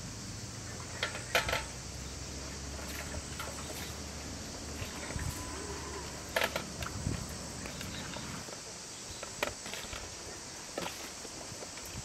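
Steady hiss of insects in the background, broken by a few short clicks and knocks as vegetables and a metal tray are handled over a large aluminium pot.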